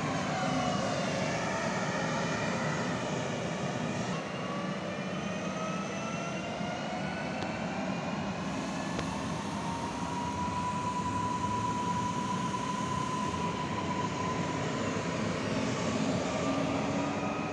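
ED78 electric multiple unit pulling away through the station: the electric traction whine sounds as several tones that rise in pitch and then hold steady, over the rumble of the wheels on the rails, slowly fading near the end.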